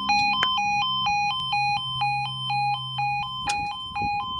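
Level crossing warning alarm sounding its two-tone yodel, the pitch switching about four times a second, over a low steady hum.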